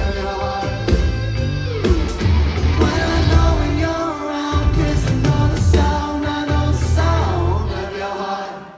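Live pop-rock band playing loudly with singing over a heavy pulsing bass, the music dying away near the end.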